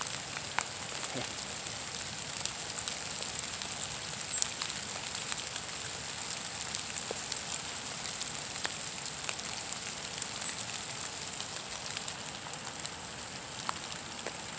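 Rain falling on the trees and leaf litter: a steady hiss with scattered light drop ticks.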